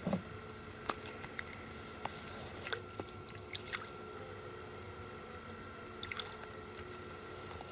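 Scattered faint clicks and crackles of close handling, a float rod being lifted and swung out among dry reed stems, with the loudest click right at the start.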